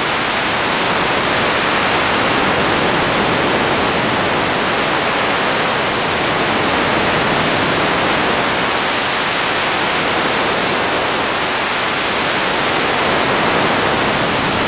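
Radio static: a loud, steady hiss, even throughout.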